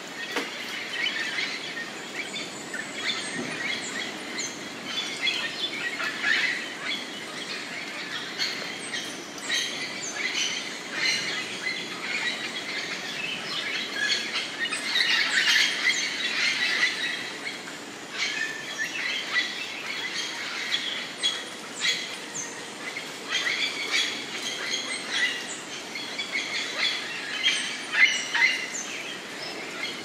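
Chorus of many tropical birds calling at once: short chirps and whistled calls overlapping without pause, busiest about halfway through.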